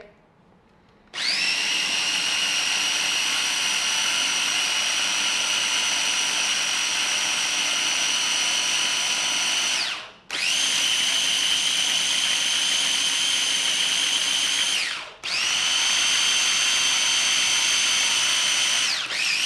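Small electric blender blending a green lime sauce. It starts about a second in with a rising whine, then runs at a steady high pitch. It stops briefly twice and is restarted each time, with a short dip near the end.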